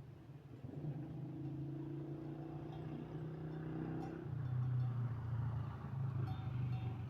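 A motor engine running steadily with a low drone; about four seconds in its pitch drops a little and it grows louder.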